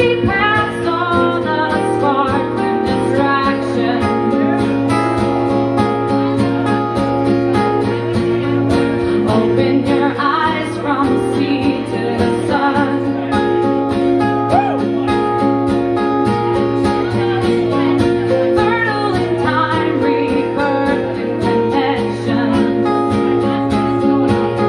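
Live song from a two-guitar duo: a woman sings while strumming an acoustic guitar, and a second guitar plays along.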